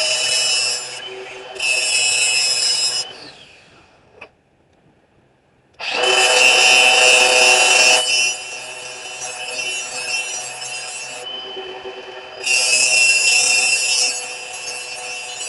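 A power grinder with a steady high whine, with forged steel pressed to it in several passes to put the edge on a slot punch. About four seconds in the grinding stops and it goes nearly quiet; it starts again abruptly about two seconds later.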